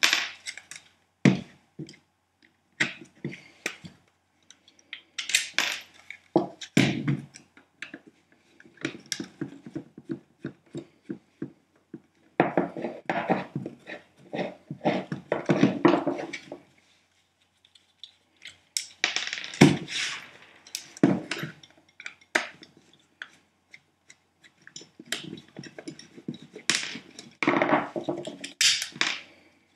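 Hands dismantling the plastic casing of an old Bosch power-tool battery pack, with irregular clicks, knocks and rattles of plastic and loose machine screws. There are several longer stretches of rattling and scraping as the case halves are worked apart.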